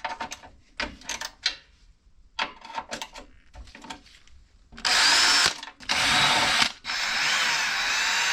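A few light clicks and knocks of handling, then a power drill/driver run in three bursts to take out the screws of the cover over the pressure washer's pull-cord recoil starter, its motor whine rising and falling within each run.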